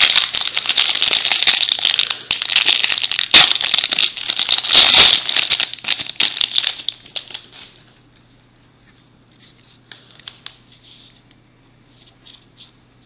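Plastic cellophane wrapper crinkling and tearing as it is pulled off a stack of baseball cards, loudest around three and a half and five seconds in. After about seven seconds it drops to faint taps of the cards being handled.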